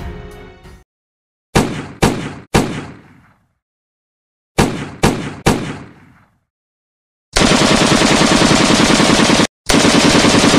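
Gunshot sound effects: two volleys of three pistol shots, each about half a second apart, then a long burst of rapid automatic fire with one brief break near the end. Music trails off in the first second.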